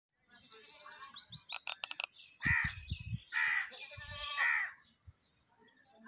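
Birds calling: a quick run of high chirps, a few sharp clicks, then three louder, harsh calls about a second apart.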